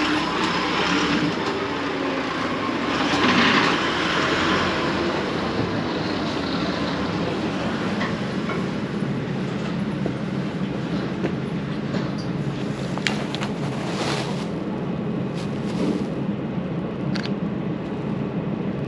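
Street ambience: a steady low rumble of passing vehicles, with a hiss that swells about three seconds in. A few sharp clicks come later on.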